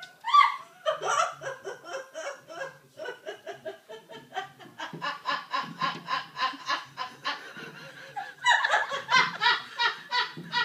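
A person laughing hard and helplessly in quick repeated pulses, several a second, with a couple of short lulls and the heartiest laughter near the start and again toward the end.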